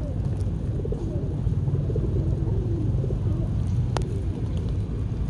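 Pigeons cooing, low and wavering, over a steady low rumble, with a single sharp click about four seconds in.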